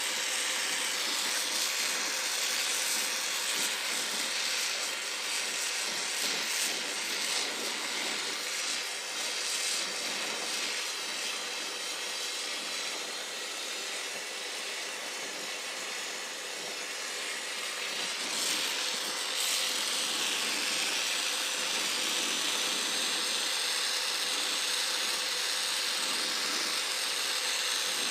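Oxygen-fuel brazing torch flame hissing steadily while it heats a copper refrigerant-line joint for silver brazing, dipping slightly in level partway through.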